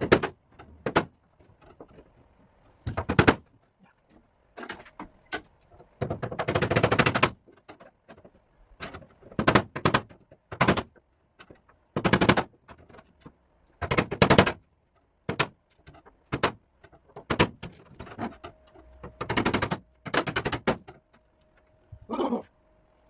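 A pneumatic impact tool hammering in short, irregular bursts of rapid blows, about a dozen bursts, each under a second to a second long, while rusted sheet-metal floor is cut and knocked free.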